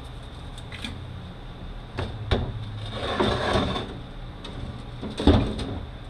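Metal transfer case parts being handled during disassembly: sharp knocks about two seconds in and again near five seconds, with a short scraping rattle between them, over a steady low hum.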